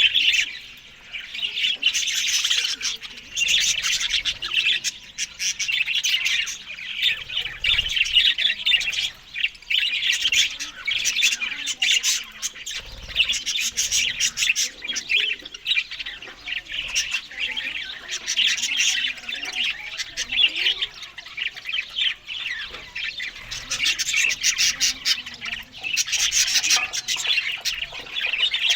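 Budgerigars chattering and squawking continuously, a busy stream of fast warbles and chirps with no pauses.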